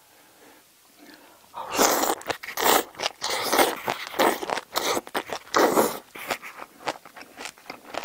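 Mouth sounds of a person eating a mouthful of spicy braised seafood and bean sprouts (haemul-jjim) with rice, crunching and chewing in quick, irregular bursts. They start about two seconds in, after a near-quiet moment.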